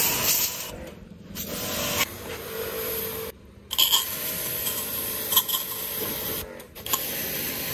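Pressure-washer jet hissing and spattering against a motorcycle's muddy engine cases and spoked front wheel, breaking off briefly a few times.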